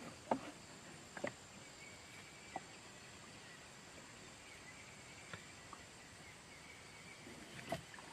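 Faint steady rush of river water, with a few short, sharp knocks scattered through it.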